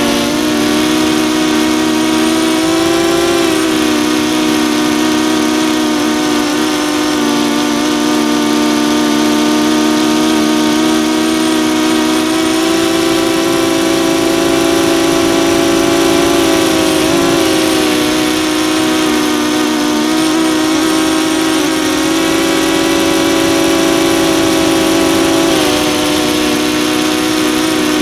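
DJI Phantom 2 quadcopter's electric motors and propellers whining steadily in flight, heard from the camera on the drone itself, the pitch shifting slightly a few times as the motor speeds change.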